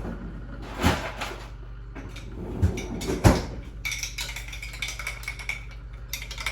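Two sharp knocks, then rapid light clicking of typing on a computer keyboard.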